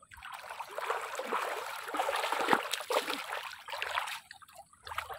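Hooked snakehead (murrel) thrashing and splashing in shallow water as it is hauled in on the line. The splashing stops about four seconds in.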